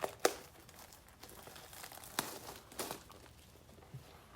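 Packaging crinkling and tearing as a box of trading-card packs is opened, in a few short crackly bursts, the loudest right at the start.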